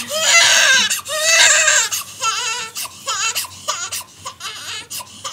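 Newborn baby crying: two long wails, then shorter, weaker cries that fade out near the end.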